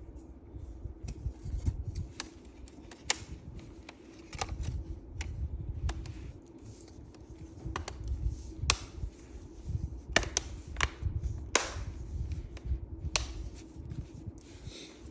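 Handling noise with irregular sharp clicks and taps, the kind made by plastic and metal parts being handled, over a steady low hum.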